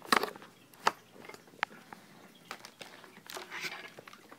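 Objects being handled and moved about on a cluttered desk: a few separate sharp clicks and knocks, one with a short ring, and a burst of rustling about three seconds in.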